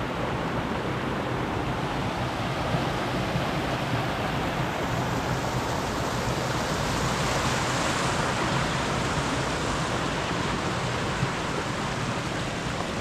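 A steady rushing noise, growing a little brighter about halfway through.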